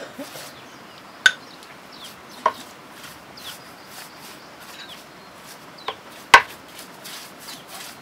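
Small paintbrush scratching paint onto a rough brick wall in short, repeated strokes, with four sharp ringing clinks, two close together about a second and two and a half seconds in, and two more near six seconds, the last the loudest.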